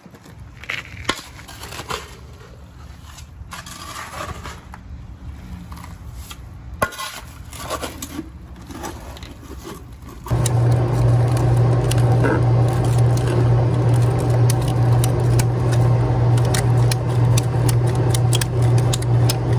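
Shovel scraping and knocking in wet dirt and broken concrete. About ten seconds in, a loud, steady drone from the pump clearing water out of the hole cuts in, with clicks over it as a ratcheting PVC pipe cutter is worked onto the pipe.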